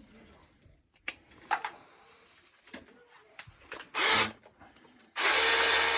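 A few light knocks of handling, then a cordless power tool's motor runs briefly about four seconds in and starts again a second later, running steadily with a high whine.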